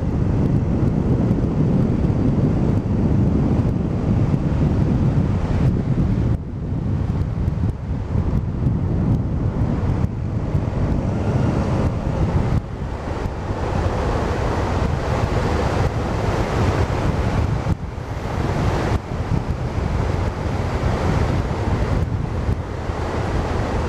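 Wind buffeting a helmet-mounted microphone on a moving scooter, over the engine and tyre noise. It is steady and loud, dipping briefly a few times.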